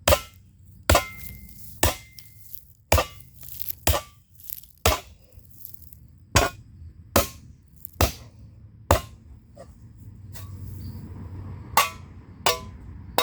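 Hand hammer striking hot steel of a shovel blade being forged into a pan, about a dozen blows at roughly one a second, some leaving a short metallic ring. The blows pause for about three seconds before the last two.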